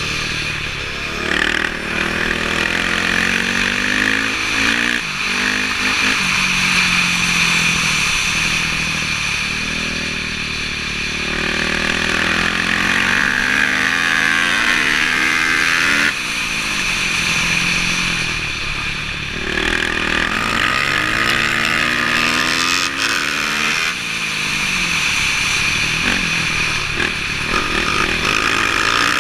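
Dirt bike engine close to the microphone, revving up and down repeatedly as the bike rides and shifts gears on ice. The pitch climbs and then drops off again many times, with sharp breaks near the middle and late on.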